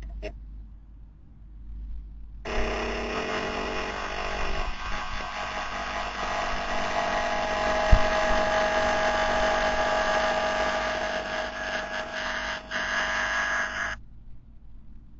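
Steady mechanical whine and hum with several held tones over a low rumble, starting abruptly about two and a half seconds in and cutting off abruptly a second before the end. A single sharp knock comes about eight seconds in.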